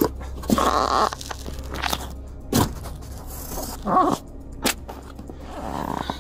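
Thumps and scuffs of a person kicking the inside of a patrol car's rear cage with her feet: about half a dozen sharp knocks at irregular intervals, with rubbing and scraping between them over the car's steady low hum.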